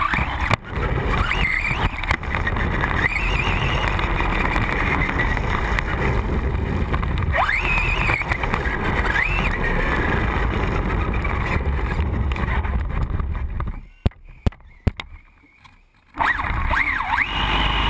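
Traxxas Bandit VXL RC car's brushless electric motor whining up and down in pitch as it speeds through puddles, with water spray and wind rushing over the GoPro mounted on the car. Near the end the sound drops away for about two seconds, broken by a few sharp knocks, then the motor whine and splashing pick up again.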